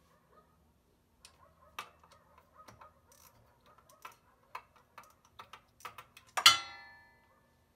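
Hand tools working on metal engine parts: scattered light metallic clicks and taps, then a single loud ringing clang of metal on metal a little over six seconds in.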